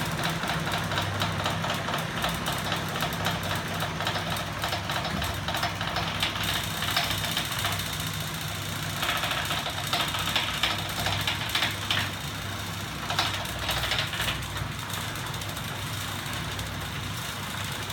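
Home-built magnet-and-flywheel 'ornithopter engine' rig running on its battery-driven electric motors: a steady low hum with fast clicking and rattling from its moving linkages. It grows louder and clatters harder about halfway through.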